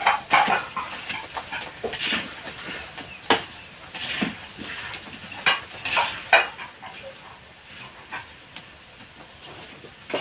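Krupuk crackers frying in hot oil in a wok: irregular bursts of sizzling and crackling as raw pieces are dropped in and puff up, with the spatula knocking the wok, busiest in the first six seconds and quieter near the end.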